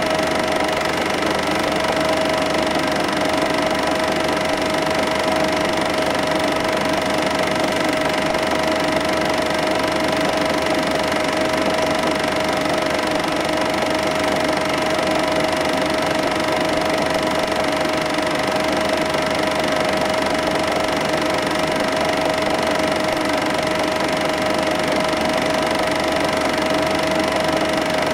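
Cine film projector running: a steady mechanical whirr with a constant high hum over a hiss, from the motor and film mechanism.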